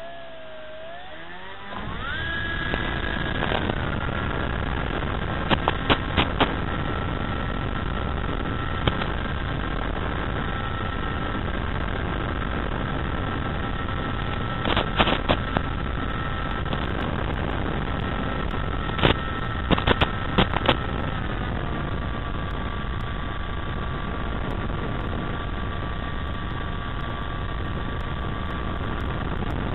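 Electric FPV plane's 3536 1400kv brushless motor and APC 11x5.5 propeller, heard from on board. It throttles up with a rising whine about two seconds in, then runs at a steady high whine with a rush of air, and eases to a slightly lower pitch about two-thirds of the way through. Clusters of sharp clicks come three times.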